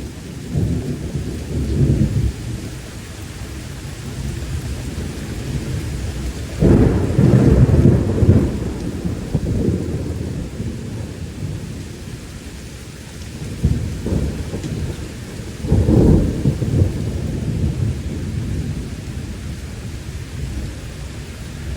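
Thunder rolling in a heavy thunderstorm over steady rain, in several low rumbling peals, the loudest about seven seconds in.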